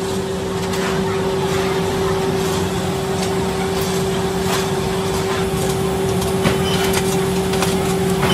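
Steady hum of workshop machinery, with a constant droning tone. Scattered light clicks and knocks come through it at irregular moments.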